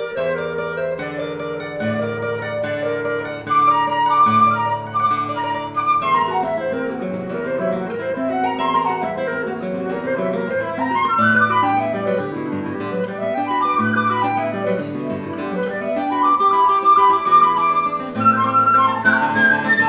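Silver concert flute and classical guitar playing a duet. The guitar picks alone at first, and the flute comes in about three and a half seconds in with quick phrases that run up and down over it.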